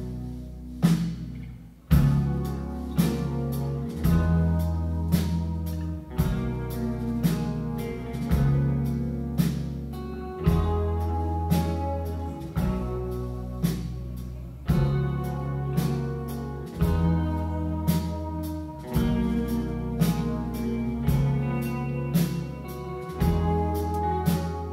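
Rock band playing live, with drum kit, bass and guitars. After a brief drop the full band comes back in about two seconds in, with steady drum hits over long held bass notes.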